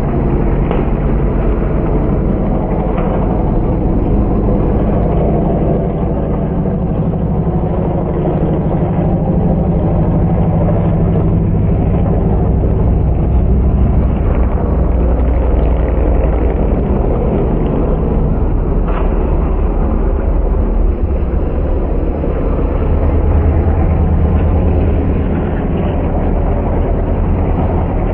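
Engines of several stock pickup race trucks running hard at racing speed, a loud, continuous engine noise that swells and eases a little as the pack moves around the track.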